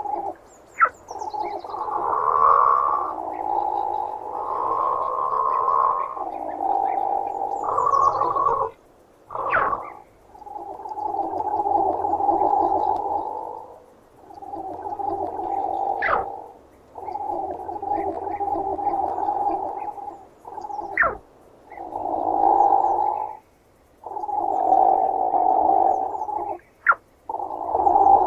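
Platypus growling in a long series of rough bouts of one to three seconds each, with short pauses and a few brief, sharp rising squeaks between them. The recording is processed as 8D audio, panning between the ears.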